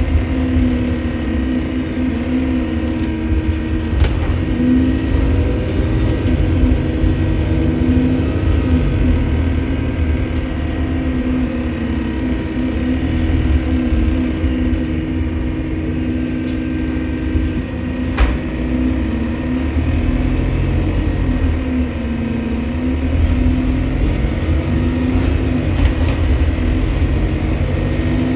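Bus engine running on the move, with a very high whistle that rises and falls three times as the engine pulls and eases off: the strange noise taken for a leaking turbo. Two sharp knocks stand out, one early and one past the middle.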